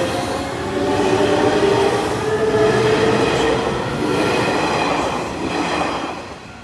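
Hanshin Electric Railway Main Line electric train passing close by, its running noise mixed with held whining tones that drift slightly in pitch; the sound drops away sharply near the end.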